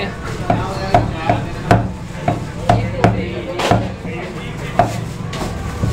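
A cleaver chopping chicken on a wooden chopping block: a quick, uneven series of sharp knocks.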